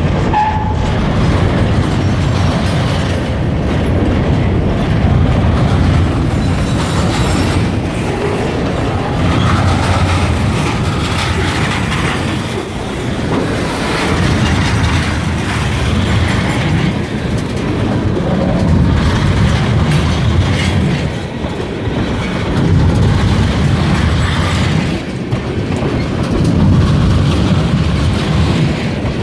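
Kiamichi Railroad freight train rolling past, its wheels clacking over the rail joints, the rumble swelling and dipping every few seconds as the cars go by.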